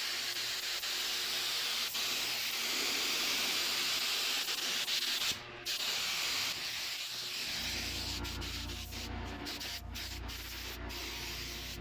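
Paint spray gun hissing as it lays down base coat, steady for about five seconds, then in shorter, weaker passes. A steady low hum starts about two-thirds of the way through.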